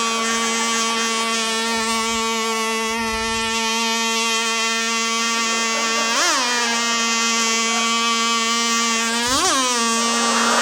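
Chainsaw engine running steadily, blipped twice on the throttle: brief rises in pitch that drop straight back, about six seconds in and again about nine and a half seconds in.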